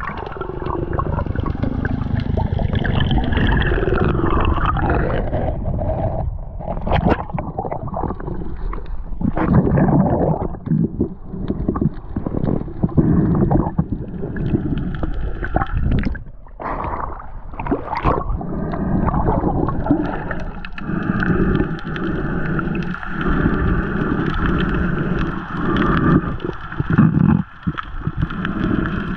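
Water gurgling and sloshing right at the microphone, as when the camera is in or at the surface of the sea, with a few sharp knocks.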